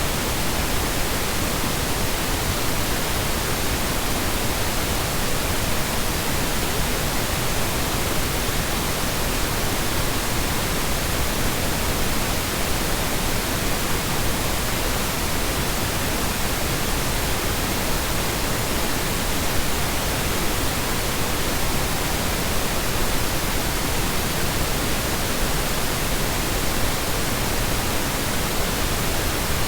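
Steady, unbroken synthetic colour noise, a full, even hiss with no changes in level or pitch, presented as Brownian noise for masking.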